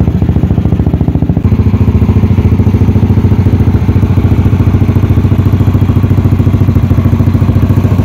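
Yamaha NMAX scooter's single-cylinder engine, built to 230cc with a JVT cylinder head, idling steadily through a JVT aftermarket exhaust with an even pulsing beat. It gets a little louder about a second and a half in.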